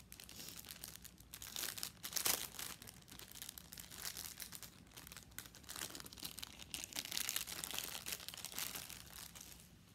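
Packaging crinkling and rustling as it is handled and pulled open to take out a pair of baby socks, with a louder burst of crackling about two seconds in and more near the end.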